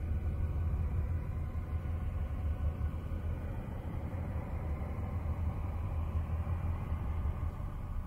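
Deep, steady rumbling drone with faint held tones above it: the 'space sound' of Uranus's moon Miranda, spacecraft radio data converted into audio.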